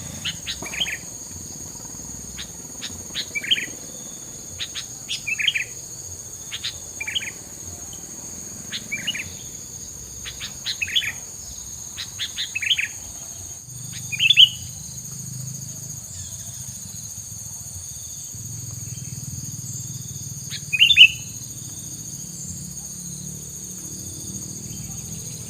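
A tilang songbird chirping: short sharp calls repeated about once a second, then two louder single calls after a pause, over a steady high-pitched insect-like drone.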